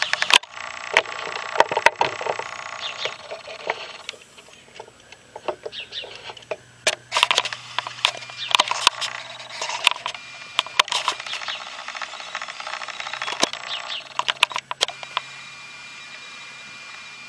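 Outdoor ambience with small birds chirping in short calls, broken by many sharp clicks and ticks scattered irregularly through it.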